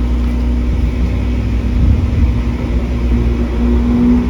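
Subaru Impreza hatchback with its engine idling, a steady low rumble.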